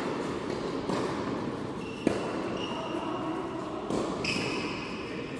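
Tennis balls knocking on a hard indoor court, three sharp knocks about a second or two apart, in a large echoing hall. A low crowd murmur runs underneath, with a few short high squeaks in the middle.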